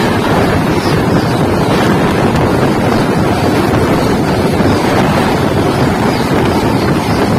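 A Duronto Express passenger train's coaches rushing past at speed on the next track, close alongside a moving train. Heavy wind buffets the microphone.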